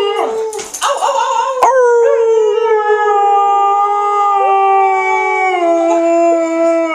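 Alaskan Malamute howling: after a second and a half of short broken sounds and a sharp click, one long steady howl starts, sinking slightly in pitch before it breaks off near the end.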